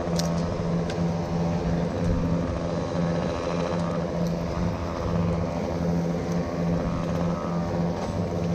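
An engine running steadily at an even speed, its drone pulsing slightly a couple of times a second.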